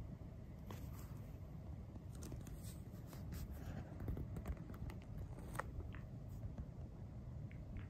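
Toy poodle digging and tugging at a fleece blanket on a bed: soft rustling with small scratches and clicks, busiest around the middle.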